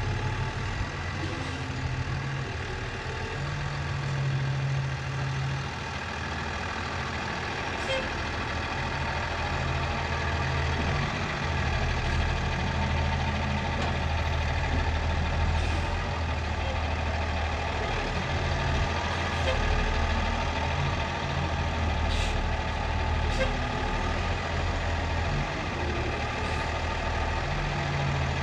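Heavy engine of hay-bale loading machinery running steadily, its note shifting up and down every few seconds as the load changes, with a few faint ticks.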